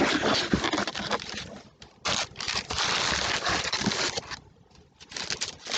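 Paper cards and packaging rustling, scraping and crinkling as they are handled close to the microphone, in three stretches with two short lulls.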